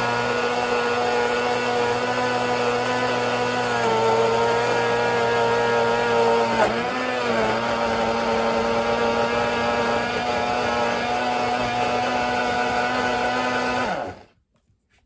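Hamilton Beach single-serve blender running loud, blending banana, hard unripe mango and milk. Its motor whine drops in pitch about four seconds in and dips briefly around seven seconds as the load shifts, then cuts off sharply about fourteen seconds in.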